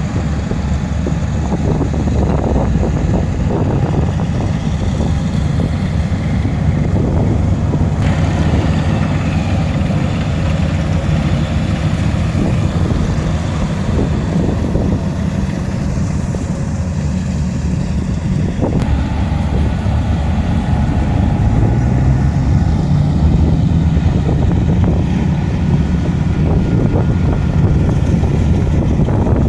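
Rice combine harvester's diesel engine running steadily under load, its pitch rising slightly about two-thirds of the way through, with wind buffeting the microphone.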